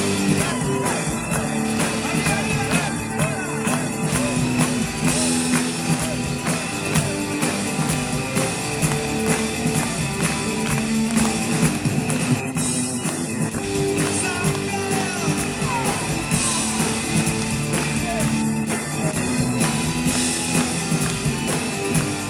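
Rock music: guitars and held chords over a steady beat, with a voice singing in places.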